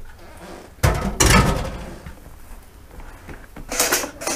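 Metal kitchen utensils and cookware clattering on a countertop. There are two loud knocks with ringing about a second in, then a brief quicker clinking near the end as metal tongs and utensils are gathered up.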